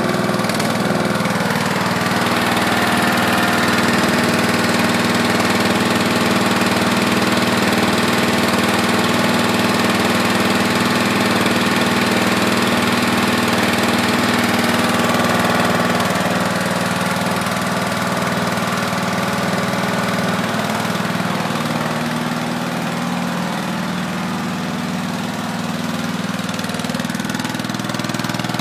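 Westwood garden tractor's engine idling steadily. Its note shifts and it grows a little quieter past the middle, then picks up again near the end.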